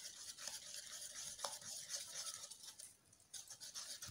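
Wire whisk beating flour into a wet cake-batter mix in a bowl: quick, faint scratchy strokes, with a brief pause about three seconds in.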